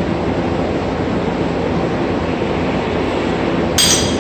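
Milwaukee core drill running steadily, its core bit boring into the wall, with a short metallic clink near the end.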